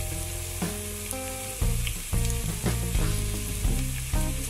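Onion and green capsicum frying in hot oil, a steady sizzle, under background instrumental music.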